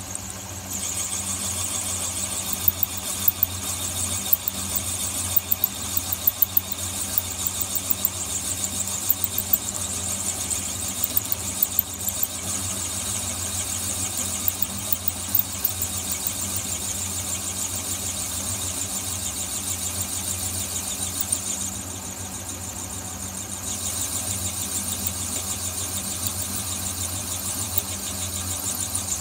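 Metal lathe drilling through a pair of 44 mm steel bar stands, the drill hand-fed by the carriage. A steady motor hum runs under a high squeal from the cutting, with scattered sharp ticks in the first half. The squeal drops away for a couple of seconds about three quarters of the way through, then resumes.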